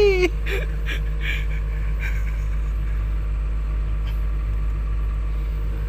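Excavator's diesel engine running steadily, a low even rumble heard from inside the operator's cab.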